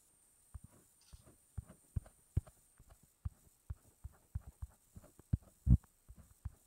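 Quick, irregular soft taps and thumps, two to four a second with one louder thump about two-thirds through, from fingers dabbing on a tablet touchscreen while shading a drawing.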